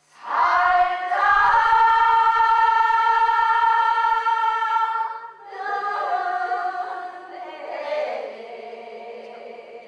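Singing in a Korean sori-geuk (folk-song stage drama): a long note held steady for about five seconds, then a shorter phrase that moves in pitch.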